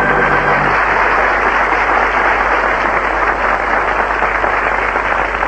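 Studio audience applauding, over the tail of a held organ chord that stops under a second in.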